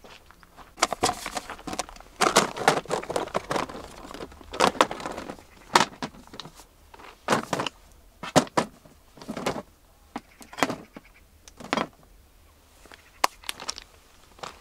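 Irregular clinks, knocks and rustles of camping gear being handled, coming in short clusters a second or so apart, busier in the first half.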